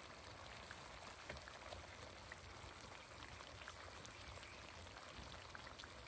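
Very faint sizzling of the duck's cooking juices in a hot cast-iron Dutch oven, with scattered small ticks and crackles.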